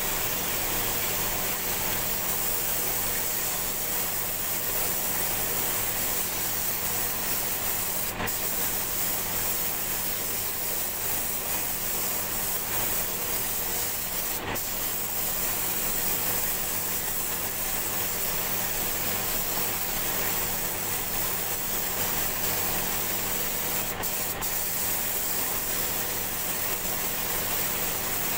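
Gravity-feed paint spray gun hissing steadily as it sprays paint, the hiss breaking off for an instant a few times. A steady low hum runs beneath it.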